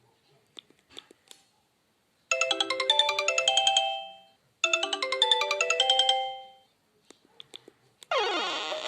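A Sony Ericsson W595's preloaded alert tone playing through the phone's loudspeaker: a short phrase of bell-like synthesized notes, sounded twice in a row, each time ringing out and fading. Faint clicks come before and after, and a different, fuller tone starts with a rising sweep near the end.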